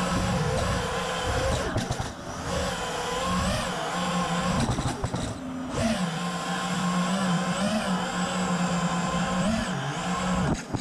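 Four Apex Racing Hornet 2306 brushless motors of a 5-inch FPV quadcopter hovering just above the ground, heard through the quad's onboard camera: a steady whine that wavers up and down in pitch with small throttle corrections. It drops away sharply at the very end as the quad sets down with the throttle still on.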